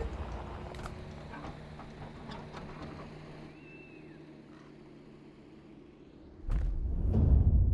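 Quiet outdoor ambience with a few small clicks and one short high bird-like chirp. About six and a half seconds in, a loud low rumble starts suddenly.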